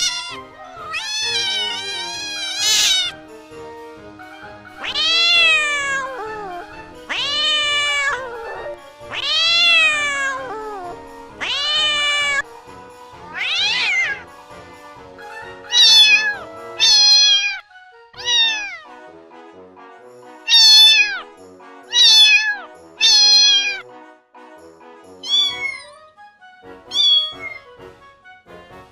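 Domestic cat meowing over and over, well over a dozen separate meows, each rising then falling in pitch, the later ones shorter. Background music with steady held notes and a beat runs underneath.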